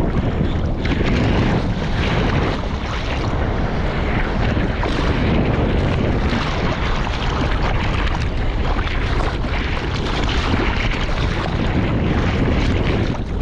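Seawater rushing and splashing around a surfboard as it is paddled out through small surf, heard close up, with wind buffeting the microphone.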